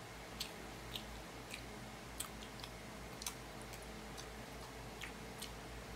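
A person chewing a spoonful of rice, with faint short clicks of the mouth and spoon every half second or so over a low steady hum.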